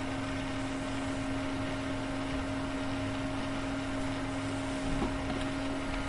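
Micromark mini fridge's small cooling fan running steadily at speed after being switched on, a steady pitched whirr with a low mains hum beneath it.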